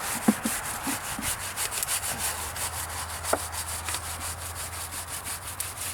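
Stiff-bristled brush scrubbing back and forth over charred cedar, a fast, even scratching of several strokes a second, working the torch-blackened char down into the wood.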